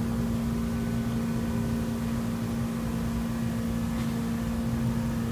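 Hot tub jets running: a steady machine hum with one constant low tone, over the rush of churning, bubbling water.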